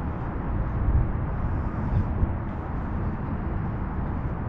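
Low, gusty rumble of wind buffeting the camera microphone outdoors.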